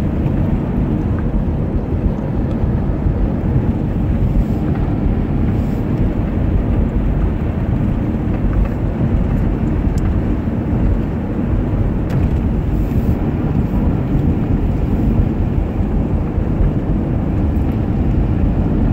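Steady low rumble of a car driving along a snow-covered road, heard from inside the cabin: tyre, engine and wind noise.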